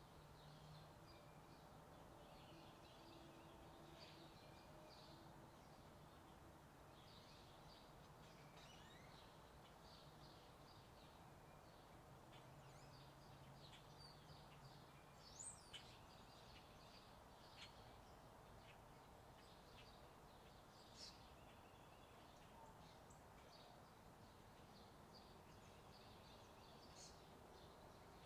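Faint morning chorus of small birds chirping, many short calls overlapping, with a few louder chirps about halfway through and again a little later. A steady low hum runs underneath.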